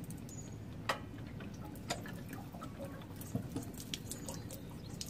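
Water dripping and trickling out of a Suburban RV water heater tank around the anode rod as it is loosened, with a few sharp clicks.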